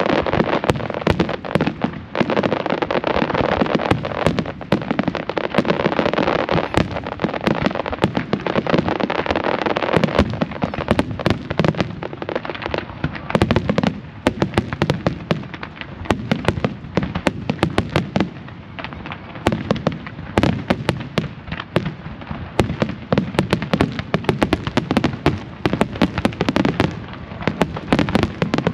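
Large fireworks display: many shells bursting at once into a thick wall of crackling and bangs for about the first ten seconds. It thins to a rapid run of separate pops and bangs.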